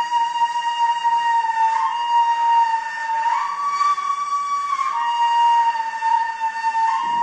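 Ney, the Turkish end-blown reed flute, playing a slow improvisation in makam Acemaşiran. It plays long held notes that step up about a second and a half in and again around three seconds in, then settle back down around five seconds in.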